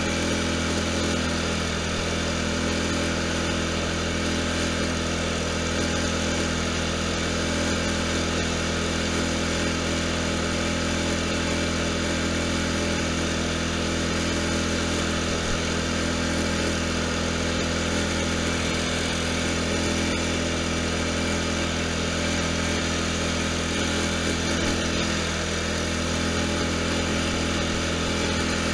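Riding lawn tractor's engine running steadily while the tractor drives along, an even drone that holds the same pitch and level throughout.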